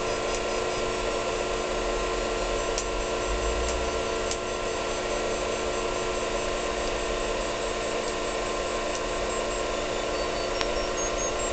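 Rife plasma wave generator running, set to 528: a steady electrical buzz with several held tones from the lit plasma tube and its RF amplifier, with a few faint clicks.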